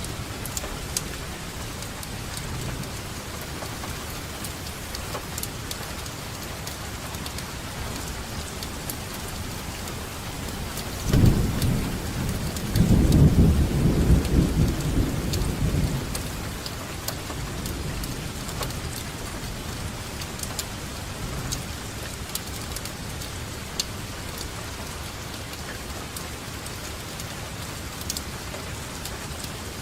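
Steady rainfall with scattered sharp drop ticks. About eleven seconds in, a roll of thunder comes in suddenly and rumbles low for around five seconds before fading back under the rain.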